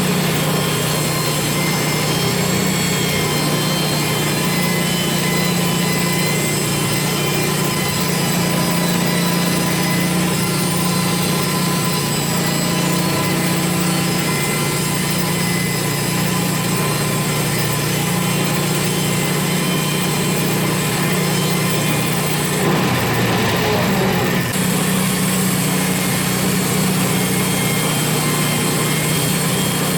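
Portable sawmill engine running steadily with an even hum, its pitch shifting slightly, during the milling of pine logs. The sound changes briefly about 23 seconds in.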